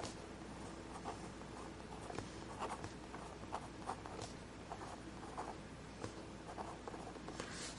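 Marker writing on paper: faint, short scratchy strokes in an irregular run.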